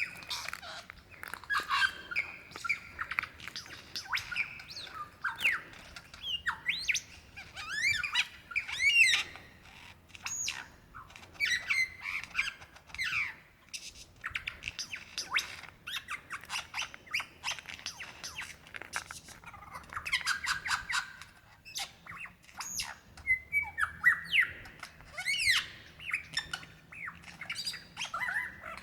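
Male superb lyrebird singing its mate-attracting song: a fast, varied run of whistles, sliding notes and rapid chattering phrases made largely of mimicked calls, with brief pauses between bouts.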